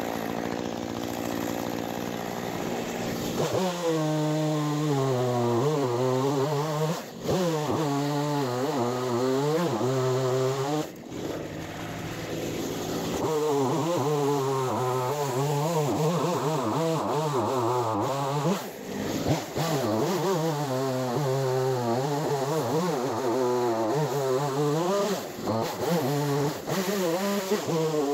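Chainsaw running and then cutting wood, its pitch wavering up and down as it bogs under load and picks up again, with a few brief let-offs of the throttle.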